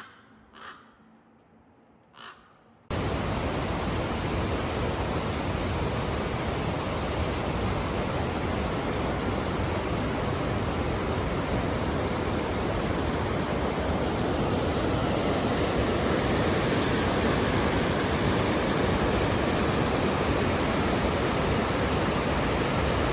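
A crow cawing twice against a quiet background, then, about three seconds in, a sudden cut to the steady, loud rush of a waterfall that runs on unbroken.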